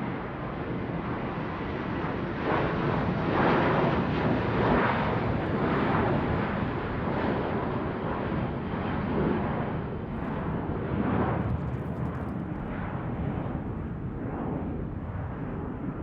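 Airplane flying overhead: a broad, steady rumble of engine noise that swells a few seconds in and gradually eases off, its higher part dropping away as it passes.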